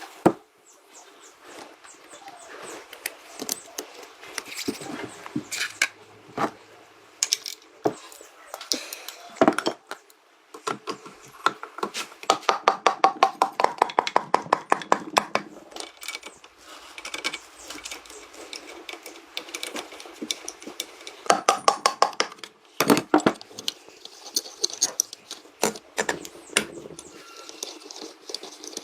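Rapid metallic clicking and tapping, in quick runs of sharp strikes.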